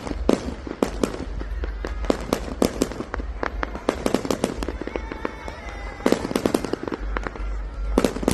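Fireworks going off in rapid, irregular succession: many sharp bangs and crackles, densest a little after six seconds in.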